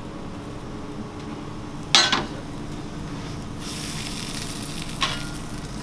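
Shawarma wraps sizzling on a hot flat-top griddle, the hiss starting a little past halfway, over a steady kitchen hum. A loud clank comes about two seconds in and a lighter one about five seconds in.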